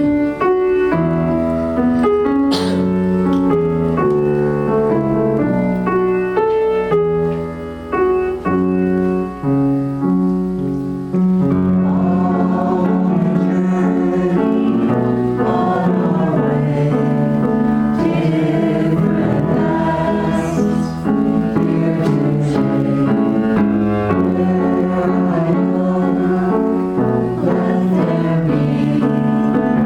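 Music: a choir singing with piano accompaniment, growing fuller about eleven seconds in.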